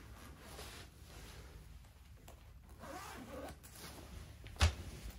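Zipper of a soft fabric pet carrier being drawn shut in several pulls, with a sharp click about four and a half seconds in.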